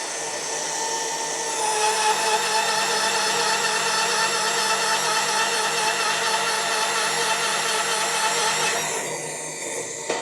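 Magnetic core drilling machine running an HSS core drill into a 10 mm steel plate: a steady motor whine, with a louder scraping cutting noise that comes in about two seconds in and drops away near the end while the motor keeps running.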